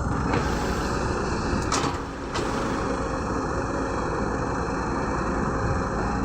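Heavy diesel engine of a CAT 120B excavator running steadily while it works, with a brief hiss about two seconds in.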